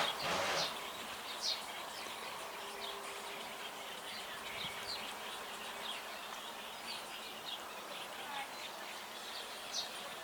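House sparrows chirping: many short high chirps scattered throughout, over a steady background hiss. A brief loud rush of noise in the first half-second.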